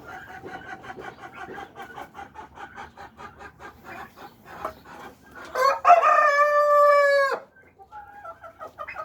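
Chickens clucking in quick, short calls, then a rooster crows once, loud and drawn out for about two seconds, starting about five and a half seconds in.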